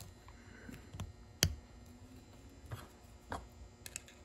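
Small metal clicks as a retaining clip is fitted onto the pivot bolt of a Shimano Santé rear derailleur with needle-nose pliers. There are about five sharp clicks, the loudest about a second and a half in.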